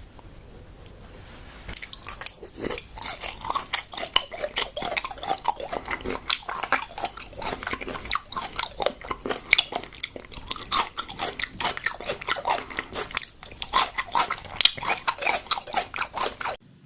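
Close-miked chewing of raw tuna: rapid mouth clicks and smacks, starting about two seconds in and cutting off abruptly just before the end.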